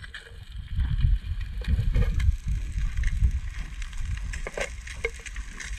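Metal tongs clicking and scraping in a frying pan as chips are lifted out, with a few sharp clicks near the end, over a low, gusty rumble of wind on the microphone.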